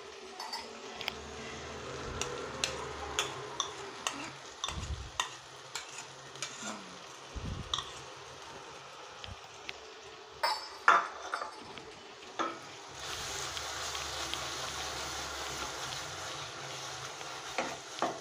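Cooking in a stainless steel pan: thick drumstick paste dropped into hot oil and masala, with repeated taps and clinks on the pan and a few sharp knocks a little past halfway. Then a steady sizzle as the paste is stirred into the frying masala.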